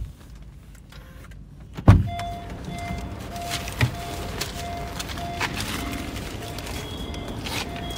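A Honda Amaze's door thumps once about two seconds in, then the car's warning chime beeps steadily, about two beeps a second, over a few small clicks and knocks of someone moving around the car.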